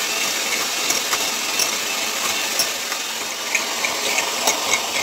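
White electric hand mixer running steadily, its beaters creaming butter and sugar in a glass bowl, with scattered light clicks through the run.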